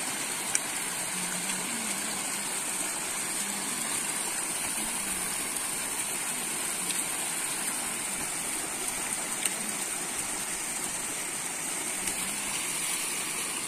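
Steady rushing noise with a few brief clicks.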